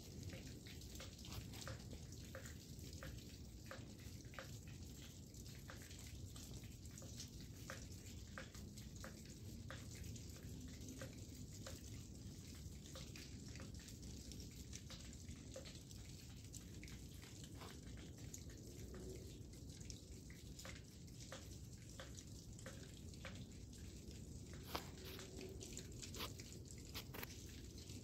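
Irregular light dripping and ticking, several drops a second, as meltwater falls from snow-covered branches and eaves. A steady low background rumble runs underneath.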